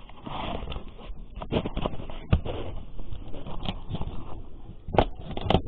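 Irregular sharp knocks of a large kitchen knife chopping and cutting rabbit meat on a wooden cutting board.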